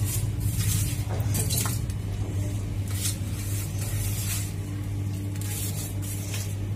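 Hand scooping dry-roasted grated coconut off a steel plate into a steel mixer jar: a series of brief scrapes and rustles of the flakes on metal, over a steady low hum.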